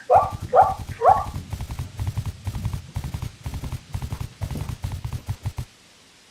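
Three short dog yelps in the first second, then a fast rattling clatter that runs for about five seconds and stops suddenly.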